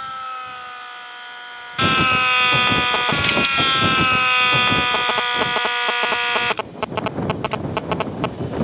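A machine's electric motor whining on one tone that slowly drops in pitch. About two seconds in, a loud mechanical clatter with rapid clicking joins it. Near the end the clatter breaks up into irregular clicks and rattles.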